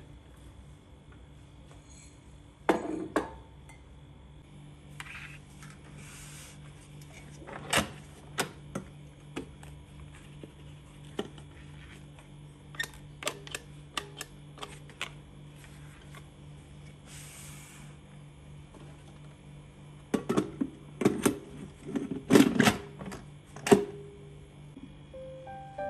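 Scattered sharp clicks, taps and knocks of hands handling hard plastic kitchen appliances: the lid, valve knob and buttons of an electric multicooker. A louder run of clicks comes near the end. A low steady hum sits underneath.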